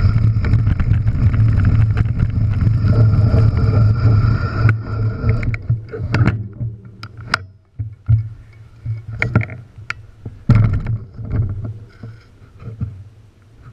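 Enduro mountain bike riding down a loose shale trail: a dense rumble of tyres on scree and wind on the microphone, dropping off about five seconds in to quieter rolling broken by sharp clicks and rattles from the bike and stones.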